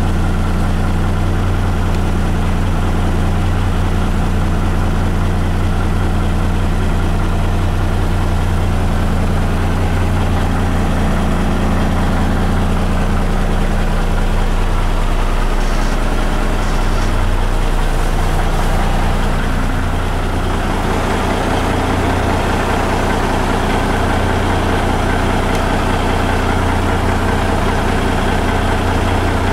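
1993 Volvo semi tractor's diesel engine idling steadily with a deep, even hum; about twenty seconds in the sound takes on more mid-pitched clatter.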